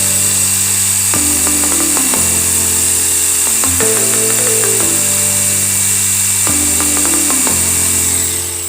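Buildskill electric drill running at steady speed with a high motor whine, spinning down and stopping near the end. Background music with a repeating chord pattern plays throughout.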